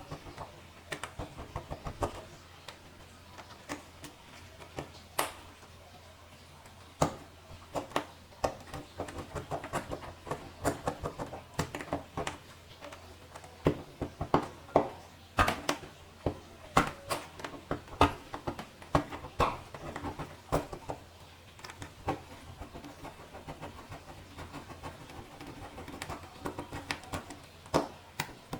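Irregular clicks, taps and knocks of hands and tools working on laptop plastic parts, heaviest through the middle, over a steady low hum.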